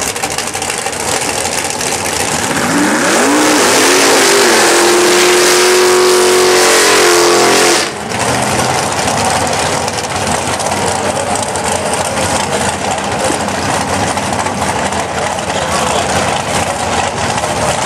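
Drag race car engines. One revs up in two quick rises to a high, held pitch for about four seconds, then cuts off suddenly, and a steady rough rumble of engines running near the start line follows.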